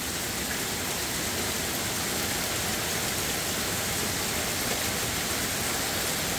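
Torrential rain mixed with small hail pouring down onto a lawn and backyard, a steady, even hiss.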